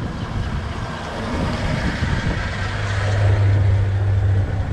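Toyota Tacoma pickup rolling slowly over a wet concrete floor, engine running and tyres hissing through the water. About halfway through, a steady low exhaust drone grows louder as the rear of the truck passes overhead.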